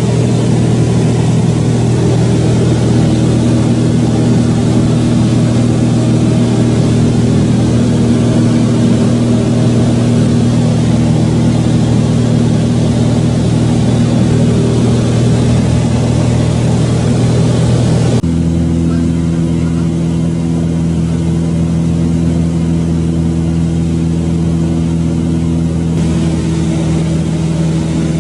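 An engine running steadily over a constant rushing hiss. Its pitch steps to a different steady note about two-thirds of the way through.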